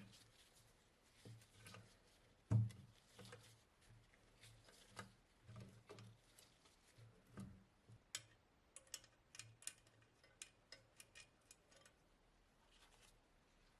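Faint, scattered clicks and knocks of small hard parts being handled, with one louder knock about two and a half seconds in and a quick run of light clicks later on.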